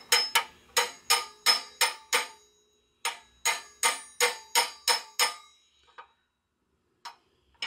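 Hammer tapping on a long steel extension bar to drive a shift rail into a tractor transmission case, a sharp ringing metal-on-metal strike about three or four times a second. There are two runs of taps with a short pause about two and a half seconds in. The rail had bound partway in and is being driven home.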